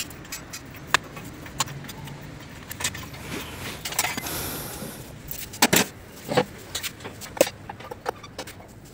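Scattered metal clinks and clanks of a spanner working the nuts and bolts of a steel air-conditioner outdoor-unit wall bracket as it is unbolted, with a brief rushing noise about four seconds in.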